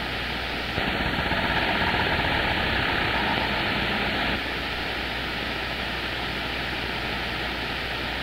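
CB radio receiver hissing with band static on an open channel, no voice getting through. About a second in, the hiss gets louder for roughly three seconds, then drops back to a steady level.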